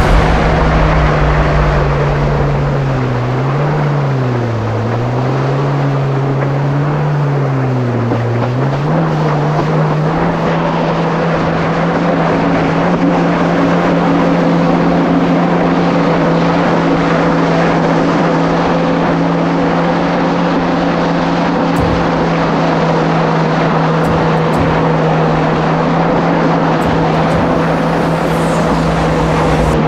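Kawasaki SX-R 1500 stand-up jet ski's engine running under way over a steady rushing noise. Its pitch dips and picks up again a few times in the first several seconds as the throttle changes, then holds steady.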